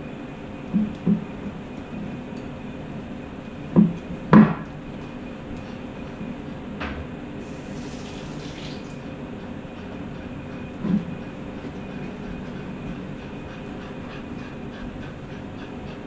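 Afghan hound eating from a ceramic plate on a wooden table, its muzzle knocking the plate against the tabletop: two knocks about a second in, the two loudest together about four seconds in, and one more near eleven seconds. A steady low hum runs underneath.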